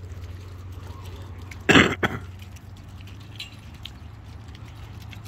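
A person coughs about two seconds in: one loud cough followed at once by a shorter, weaker one.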